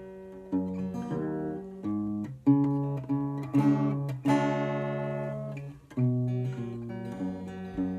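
Acoustic guitar played slowly, chords strummed and left to ring one after another; a chord struck just after four seconds in rings out for about a second and a half and fades before the next one comes in at six seconds.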